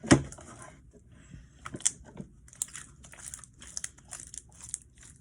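Sticky slime being squished and pulled apart in the hands, a run of short crackling squishes. A sharp loud one comes right at the start, then about three a second in the second half.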